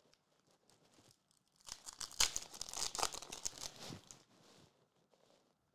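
Foil wrapper of a Topps F1 Chrome trading-card pack crinkling and tearing as the pack is opened and the cards are pulled out, for about two and a half seconds starting just under two seconds in.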